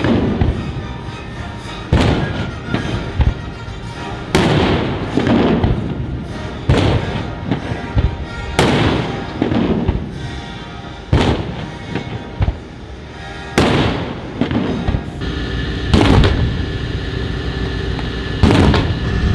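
USS Constitution's cannons firing a ceremonial gun salute: a sharp blast about every two and a half seconds, each followed by a rolling echo that dies away before the next shot.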